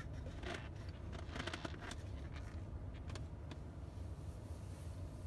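Steady low hum inside the cabin of a Tesla that is being supercharged, with a few faint clicks and rustles in the first half.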